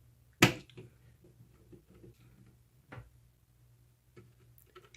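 A few sharp clicks and lighter taps from handling the keyboard's small screws and plastic parts, the loudest about half a second in and another at three seconds, over a faint steady hum.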